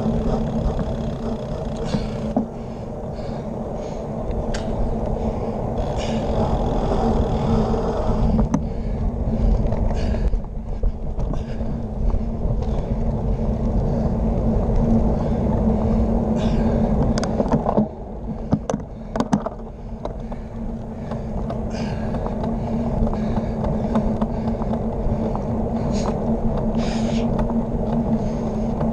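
Wind noise and tyre rumble from a bicycle rolling along a paved road, heard through a handlebar-mounted camera, with scattered sharp knocks from bumps and cracks in the pavement.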